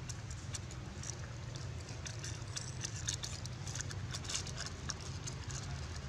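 Short crackly rustles in quick clusters as baby macaques paw and pull at a dry yellow leaf, over a steady low hum.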